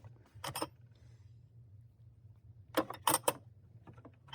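Metal hand tools clinking as they are handled and set into a tool box drawer: a couple of clicks about half a second in, then a quick cluster of clinks around three seconds in.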